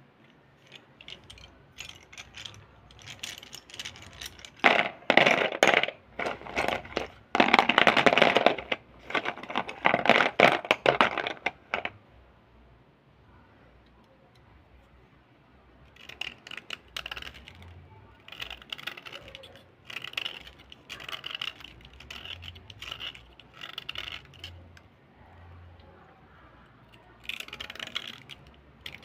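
Slate pencils clattering and clinking against each other in a plastic bowl as a hand stirs through them. After a short quiet spell, a small blade scrapes along a slate pencil in short strokes, about one a second.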